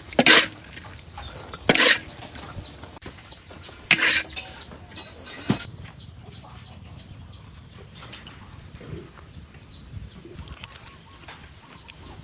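Chickens: a quick run of short, high, falling peeps, about three a second, for several seconds, with four loud sudden noisy bursts in the first six seconds.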